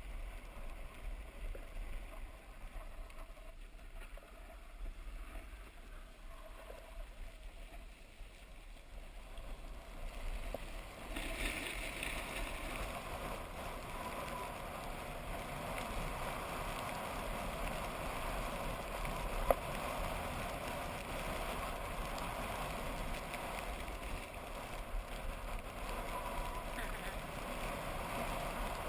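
Skis or a snowboard sliding and scraping on packed snow, with air rushing past, as a rider descends a run; heard from a camera worn by the rider. The hiss grows louder about ten seconds in, and there is a single sharp click a little after the middle.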